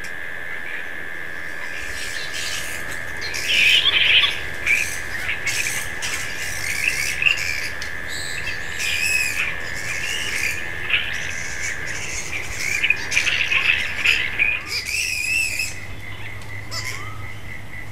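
Bats calling in a tree: repeated short, shrill squawks with a wavering pitch, starting about two seconds in and continuing through. Beneath them runs a steady high-pitched tone that stops near the end.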